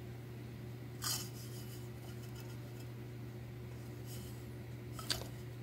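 Handling noise from a bisque-fired ceramic mug and a paintbrush: a short scrape about a second in and a sharp light click near the end, over a steady low hum.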